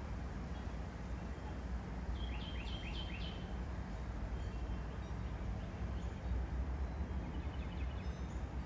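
A bird calling in a quick series of about four short chirps about two seconds in, with a fainter series near the end, over a steady low rumble.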